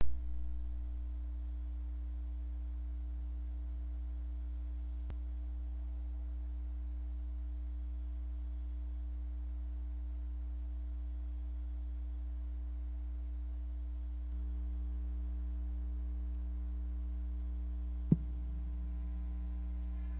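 Steady low electrical mains hum from a sound system with nothing playing through it. A pop right at the start, the hum stepping slightly louder about 14 seconds in, and a single short knock about 18 seconds in.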